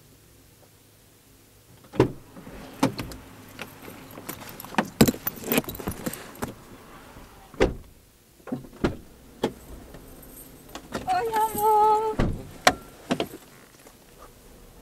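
Someone opening a car door and climbing into the passenger seat: clicks, knocks and rustling, a brief high-pitched voice, then the door shutting with a heavy thump about twelve seconds in.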